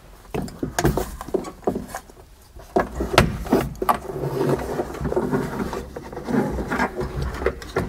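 Irregular clicks, knocks and rustling of plastic wiring plugs, loose wires and a metal gauge cluster being handled as the connectors are plugged in and the cluster is pushed into a car dash.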